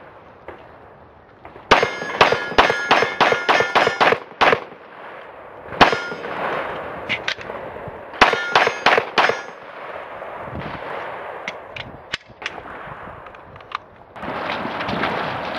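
A 9mm Glock 34 pistol fired in two rapid strings, about ten shots and then about six, with a single shot between them, while caked with mud. Steel targets ring and clang under the shots.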